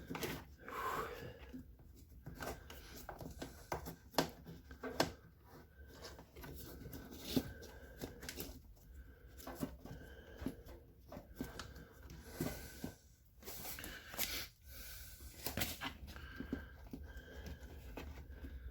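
Irregular clicks, taps and light knocks of hands handling washing-machine parts and tools during reassembly, with some rustling in between.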